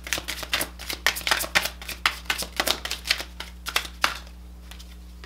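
A deck of cards being shuffled hand over hand: a quick run of soft card flicks and slaps that thins out about four seconds in.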